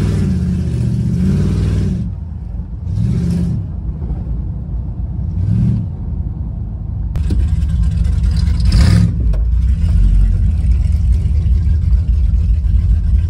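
1970 Dodge Charger's engine heard from inside the car, rising and falling in pitch in several pulls as it accelerates and shifts. About nine seconds in there is a brief louder surge, and after that it settles into a steady low rumble at slow speed.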